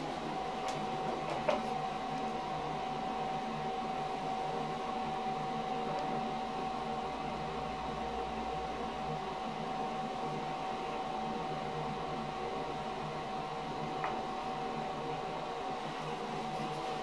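Mitsubishi Elepet Advance V elevator car travelling down, a steady hum with a constant high-pitched whine running under it. A small click comes about a second and a half in, and another near the end.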